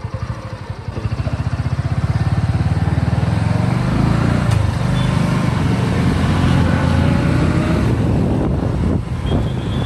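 Motorcycle engine pulling away from a stop: its low firing pulses quicken over the first few seconds, then it runs steadily at riding speed.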